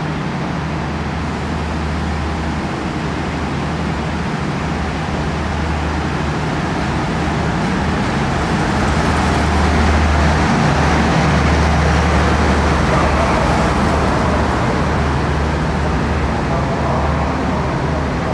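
DF11G diesel locomotive rolling slowly past at close range: a steady low engine rumble that grows louder until the locomotive draws level about halfway through, then carries on as its passenger coaches roll by.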